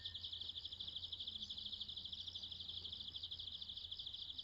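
An insect chirring steadily in a fast, even pulse of about nine beats a second, high-pitched, over a faint low hum.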